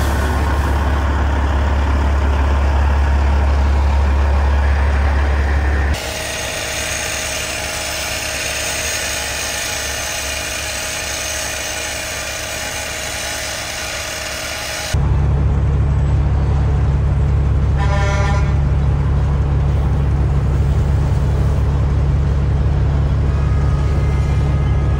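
Road vehicle running with a steady low hum, in three stretches that change abruptly about six seconds in and again about fifteen seconds in, with a short car horn honk a few seconds after the second change.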